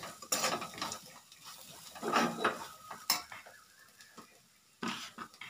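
Kitchen jars and lids clinking and knocking as they are handled, a few separate clatters with the longest and loudest about two seconds in. They are likely the stainless-steel jars of a mixer grinder.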